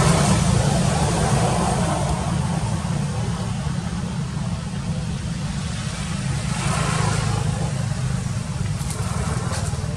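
A motor vehicle engine running steadily, heard as a low rumble, with a brief swell of higher rushing noise about seven seconds in.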